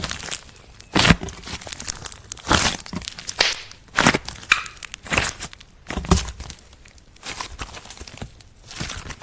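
Hands squeezing, stretching and poking slime, making a series of short crackling, squelching pops about once a second.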